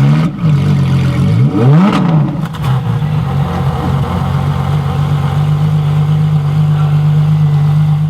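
Freshly started car engine blipped twice in the first two seconds, its pitch rising and falling quickly each time, then settling into a steady idle.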